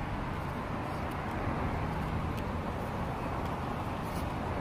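Steady outdoor background noise with a low hum, like distant urban traffic, and a few faint light ticks as paper flash cards are handled on a table.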